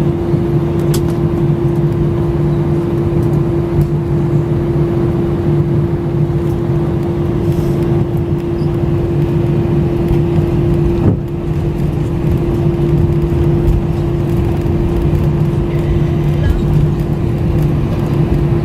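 Steady cabin noise of an Airbus A320 taxiing after landing: the engines at idle and the cabin air running as a constant drone with a steady hum tone over a low rumble.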